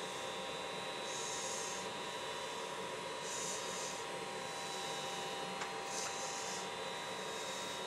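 Fingers rubbing and smoothing white filler on a walleye mount's head: a few soft brushing strokes, each about half a second long, over a steady electrical hum.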